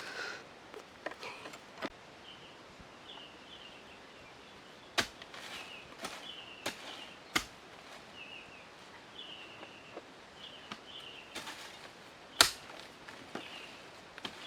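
A bird chirping, short high notes that step downward and repeat about once a second, over outdoor background noise, with several sharp clicks or knocks, the loudest near the end.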